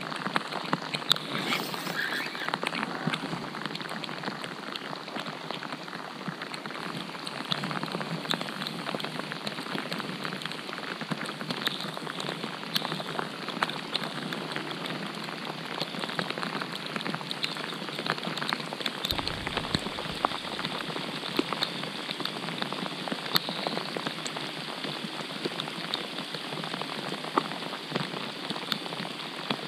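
Steady rain falling on a lake's surface: an even, dense patter with many scattered sharper drop ticks.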